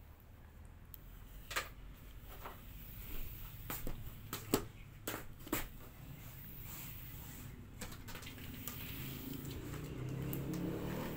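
A pin brush stroking through a dog's long coat: scattered sharp clicks in the first half, then a steady rustling of brushing that grows louder near the end.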